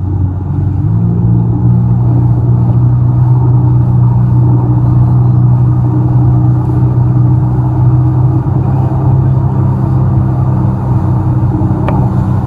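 Jet ski engine running steadily at speed. Its pitch steps up about a second in and holds, then begins to drop right at the end as it comes off the throttle. A single sharp click comes shortly before the end.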